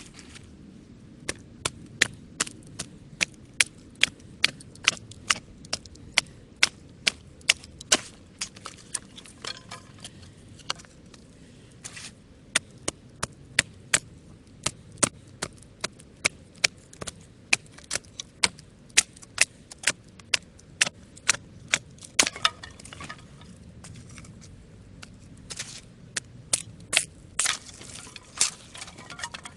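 Wood campfire crackling and popping: sharp irregular pops, several a second, over a low steady rumble, with a couple of longer crackling bursts near the end.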